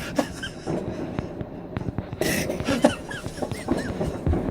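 Fireworks popping and crackling, with a louder burst about two seconds in, mixed with short bursts of stifled laughter.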